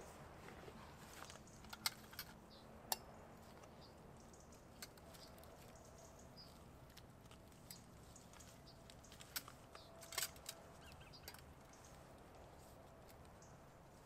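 Faint handling sounds of camping gear over near silence: rustling in a backpack and a few sharp clicks and clinks as a small metal camp stove and pot are set up. The sharpest clicks come about two and three seconds in and again around ten seconds in.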